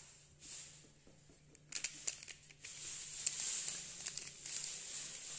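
Foil-lined powder sachet crinkling as colostrum milk powder is tipped and shaken out of it into a drinking glass. There are a few light ticks about two seconds in, then a steady soft hiss.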